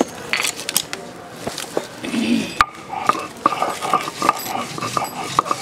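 Stone roller of a shil-pata grinding stone knocking and scraping on the stone slab as chopped onion and garlic are crushed into paste, with a sharp knock a little past halfway and then a run of quick knocks.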